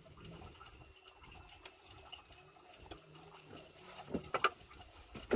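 Faint scattered ticks and taps of a handline and gear being handled in a small wooden boat, with a few louder knocks about four seconds in.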